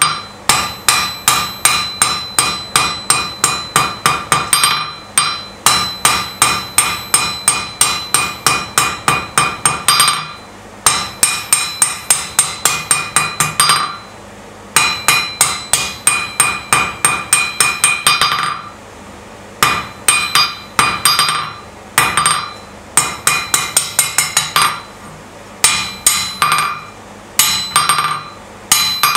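Hand hammer striking a hot steel bar on an anvil, drawing out a tapered point: quick runs of ringing blows, about three or four a second, broken by short pauses.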